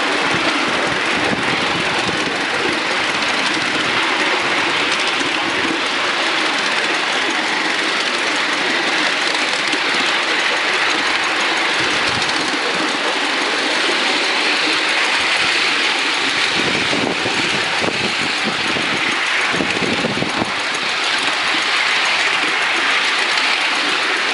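Ride-on miniature live-steam locomotive running along the track: a steady loud hiss and rumble of steam and wheels on the rails.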